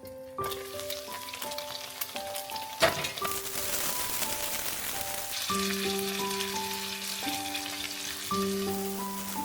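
Dumplings sizzling in oil in a frying pan, with a steady hiss that grows stronger in the second half. One sharp knock comes about three seconds in.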